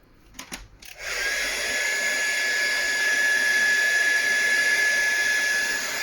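Heat gun switched on about a second in after a few light clicks, running steadily with a rush of fan air and a high steady whine that rises briefly as it spins up. It is heating the phone's glued back glass to soften the adhesive.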